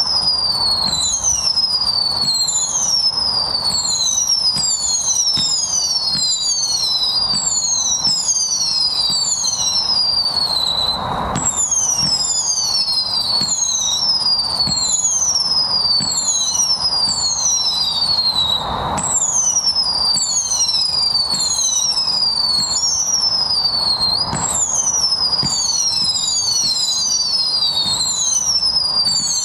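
Tai Pan Discovery Endeavour 200-shot firework cake firing a rapid, continuous string of whistling shots: high whistles, each falling in pitch and overlapping the next, over soft launch pops. The stream slackens briefly twice.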